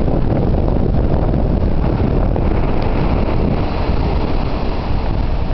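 Strong wind buffeting the microphone, a steady loud low rumble with no distinct events.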